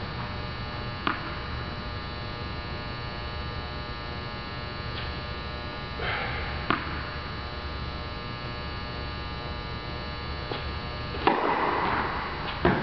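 Steady electrical mains hum, broken by a few sharp knocks of a tennis ball: a bounce early on, then near the end the loud crack of the racquet striking the ball on a flat serve, with another knock about a second later.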